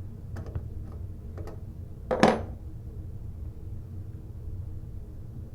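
Light metallic clicks of a combination wrench working the brass nut off a toilet closet bolt, then one louder sharp metal clink with brief ringing about two seconds in.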